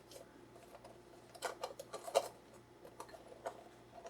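Paper coffee filter being fitted over the rim of a glass dripolator: a few small clicks and taps of paper and glass, most of them between about one and a half and two and a half seconds in.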